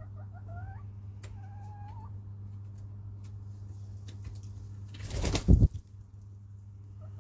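Hens making soft, warbling calls that glide up and down in pitch during the first two seconds, then a brief loud rustle of feathers from a hen about five seconds in.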